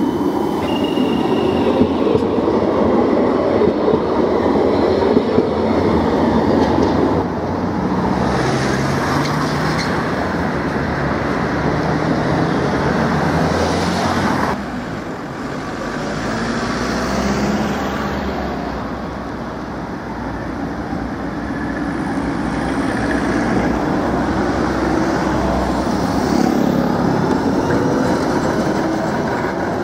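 Trams running past on city street track, a steady rumble of steel wheels on rail from CAF Urbos 3 low-floor trams and an older Ganz articulated tram, mixed with street traffic. A brief high wheel squeal comes just after the start.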